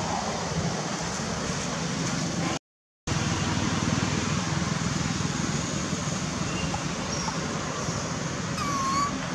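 A young long-tailed macaque gives a short cry near the end, one brief call that rises and falls, over a steady hiss of forest background. The sound cuts out completely for half a second early on.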